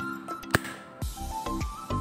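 Background music, with one sharp click about half a second in: a spring-loaded desoldering pump firing as it sucks solder off a resistor joint.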